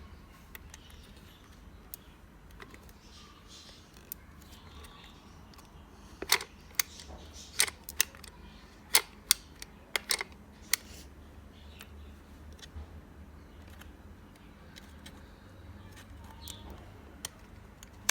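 A run of about ten sharp clicks and taps over a few seconds, against a low steady hum: objects being handled.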